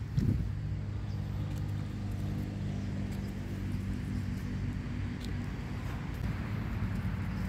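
A steady low mechanical hum, like an engine running, with a short thump about a third of a second in.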